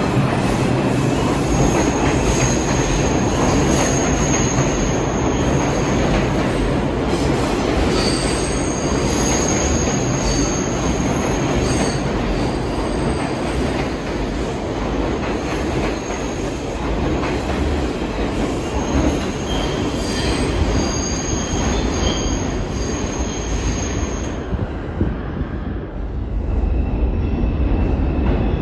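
R142-series New York subway cars running through the station, a loud steady rumble of wheels on rail. High-pitched wheel squeal comes and goes over it and dies away about 24 seconds in, while the low rumble carries on.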